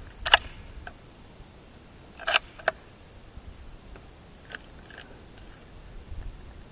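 Sharp metallic clacks of a Lee-Enfield .303 bolt-action rifle being handled: one about a third of a second in, two close together a little past two seconds, then a few fainter clicks.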